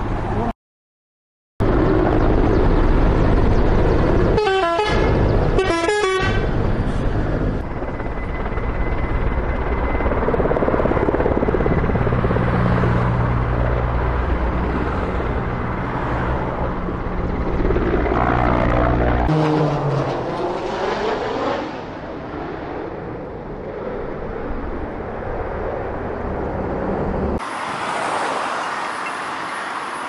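Firefighting helicopter's engine and rotor running steadily overhead, with two short horn toots about four and six seconds in. Near the end it gives way to quieter road traffic.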